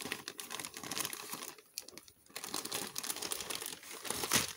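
Scissors cutting open a model kit's plastic parts bag, the thin plastic crinkling as it is handled, with a short lull about two seconds in.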